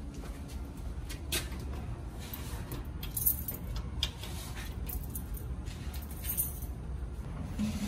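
Shoes being taken off at a shoe rack: scattered light clicks and rattles over a steady low rumble, the sharpest about three seconds in and again near six seconds.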